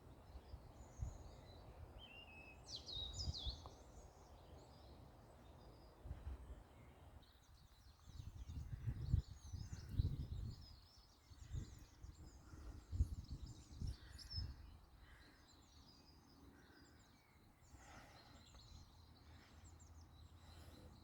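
Wild songbirds chirping and singing, with a few gliding calls, over irregular low thuds and rumble that grow louder in the middle and then fade.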